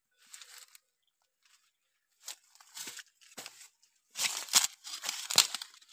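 Dry leaves crackling and rustling in short, irregular bursts, loudest and densest in the last two seconds.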